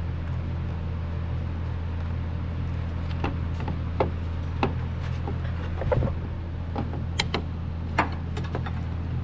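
A steady low machine hum, with scattered sharp metallic clicks and knocks from about three seconds in, typical of hand tools being handled.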